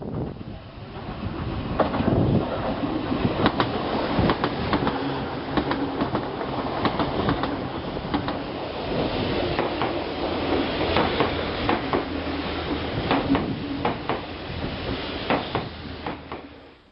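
Electric train of Meitetsu's Seto Line running on the rails, with a steady running noise and wheels clicking sharply and irregularly over rail joints. It starts suddenly and fades out near the end.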